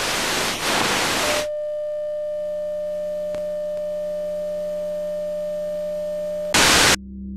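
A television broadcast's audio failing as the network feed drops out: about a second and a half of loud static hiss, then a steady electronic tone, cut by a brief burst of static near the end and followed by a low hum.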